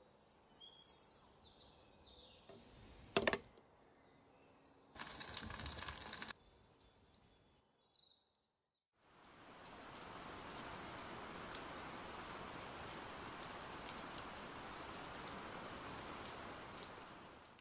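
Outdoor garden ambience: birds chirping in short, high, falling calls near the start and again about seven seconds in, with a sharp click around three seconds and a second or so of rustling. After a brief drop-out, a steady, even hiss fills the rest.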